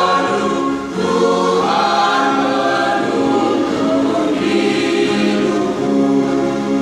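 Mixed choir of women's and men's voices singing in parts, holding long notes, with a brief break about a second in.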